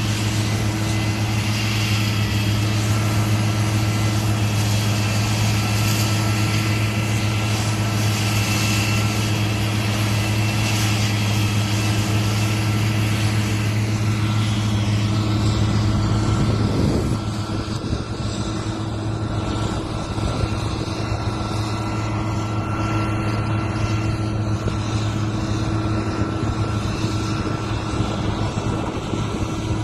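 A vehicle engine running steadily at a constant speed, a low hum under a hiss; about halfway through it gets slightly quieter and the hiss fades.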